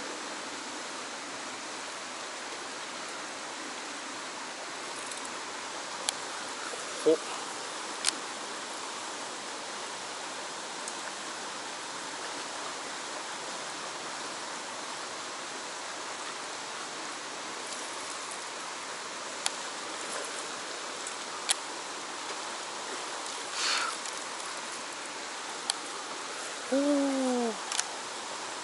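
Steady rush of a stream flowing through a rocky channel. A few sharp ticks sound over it, and near the end a short falling call is the loudest thing heard.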